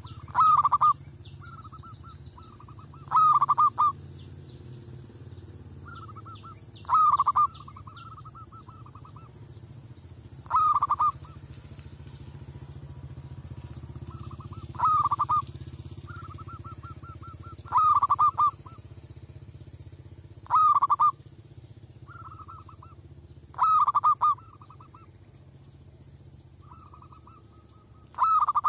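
Zebra dove cooing: each phrase is a short run of soft staccato notes that ends in a loud rolling coo, and the phrase repeats about every three to four seconds, nine times in all.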